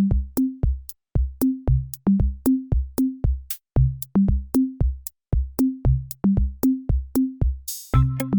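Outro music built on a drum-machine beat, about four sharp strokes a second with pitched bass-drum thuds and no melody. A crash near the end leads into fuller instruments.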